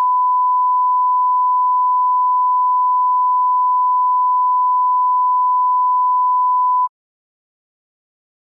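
A steady 1 kHz electronic test tone, one unbroken beep of about seven seconds that cuts off suddenly. It is the off-air signal of a broadcast interrupted, 'service suspended'.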